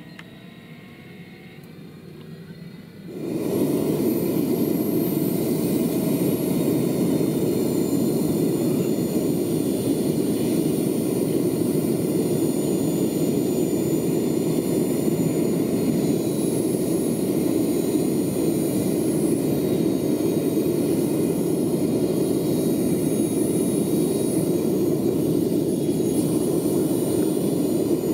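Jakadofsky Pro 6000 model turbine in a large-scale RC Aérospatiale Gazelle helicopter starting up: a faint rising whine for about three seconds, then it jumps suddenly to a steady loud rushing run with high thin whining tones over it.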